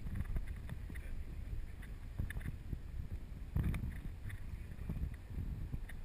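Rowed fishing boat drifting on a river: wind rumbling on the microphone over running water, with a few light knocks from the oars and boat, the loudest a little past halfway.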